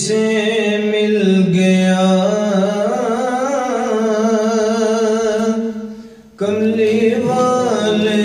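A man's solo voice chanting long, drawn-out ornamented notes in the style of Islamic devotional recitation (salawat on the Prophet). The voice breaks off briefly for a breath about six seconds in, then comes back.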